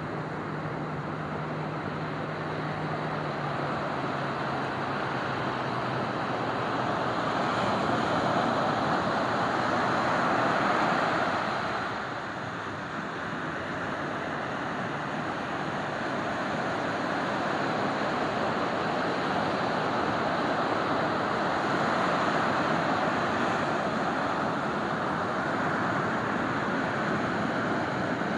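Ocean surf washing onto a sandy beach: a continuous rush of breaking waves that swells loudest about ten seconds in, eases briefly, then builds again. A faint low hum, drifting slightly down in pitch, lies under it for the first six seconds or so.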